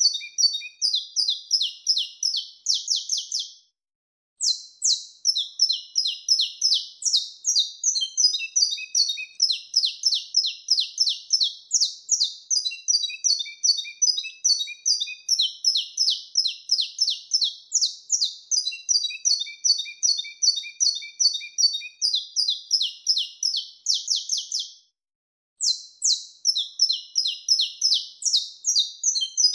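Saffron finch (canário-da-terra) singing its wild-type "mateiro" song: long runs of rapid, high chirps and trills, broken by two brief pauses, about four seconds in and again near the end.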